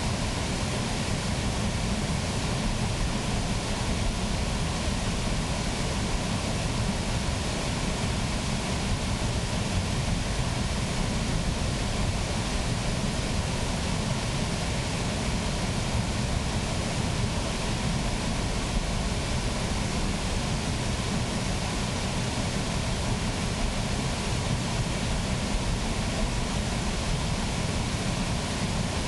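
Water rushing through the wooden mill race beneath an undershot mill wheel: a steady, unbroken sound of falling, churning water with no knocks or rhythm.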